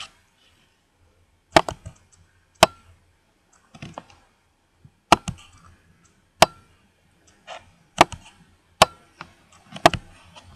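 A series of sharp single clicks from a computer, roughly one a second and about nine in all. Some are fainter than others.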